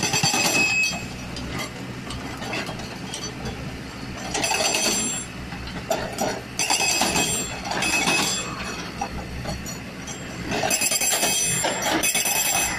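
Excavator-mounted FRD hydraulic rock breaker hammering rock in bursts of rapid blows, four times, with the excavator's engine running in the quieter gaps between bursts.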